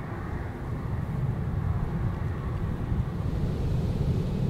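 Low jet-engine rumble from an Airbus A330-200 airliner, growing gradually louder, with wind buffeting the microphone.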